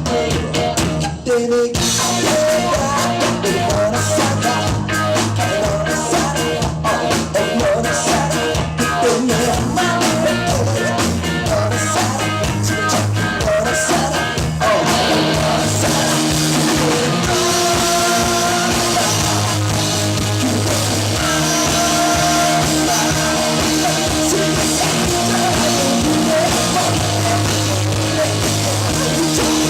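A rock band playing live, with drum kit, electric guitar and singing. Partway through it moves from a drum-driven passage into a fuller, more sustained section.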